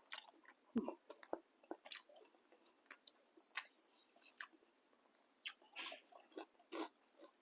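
Close-up eating sounds of someone eating boat noodle soup: irregular chewing and wet mouth noises with scattered small clicks.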